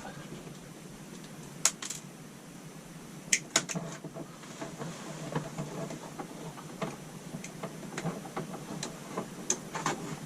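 Hand work on small electrical wiring: a sharp click a little under two seconds in, a quick cluster of clicks at about three and a half seconds, then a run of light ticks and handling noises as wires and connectors are worked.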